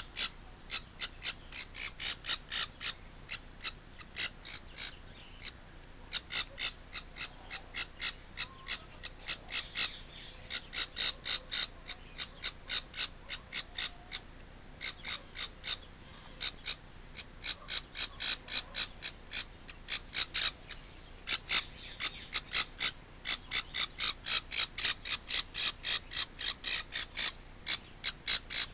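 A nestling parrot chick calling with a rapid series of short, raspy squawks, about three to four a second, in long runs broken by a few brief pauses.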